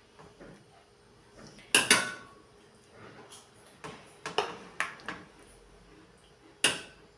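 A spatula knocking and scraping in a plastic mixing bowl and marinated chicken drumsticks being set into an air fryer basket: a handful of sharp knocks, the loudest about two seconds in and near the end.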